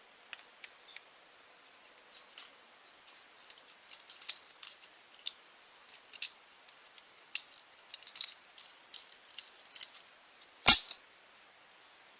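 Irregular light clicks, taps and rattles of small objects being handled, with one louder knock near the end.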